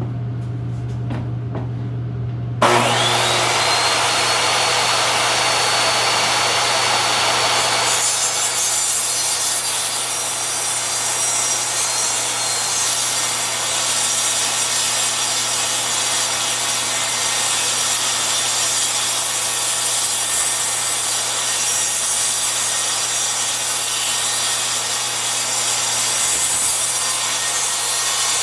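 Table saw switching on about two and a half seconds in, its whine rising quickly to a steady pitch. From about eight seconds in, the tilted blade cuts along the edge of a board, and the cut runs on until just before the end.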